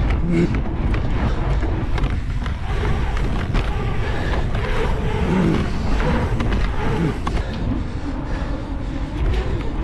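Mountain bike riding fast on asphalt: knobby tyres rolling on the pavement, with wind rushing over the rider's camera microphone.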